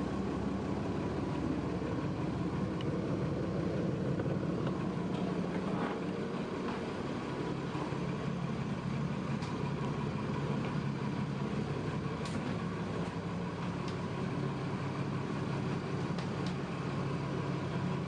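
Twin Perkins diesel engines idling, a steady low drone heard from inside the boat's cabin.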